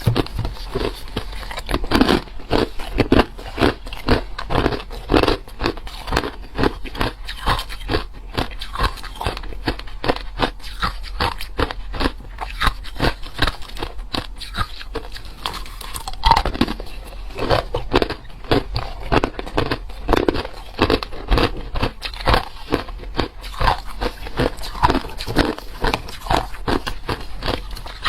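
A person biting and chewing hard crushed ice close to the microphone: dense, rapid crunches, several a second, throughout.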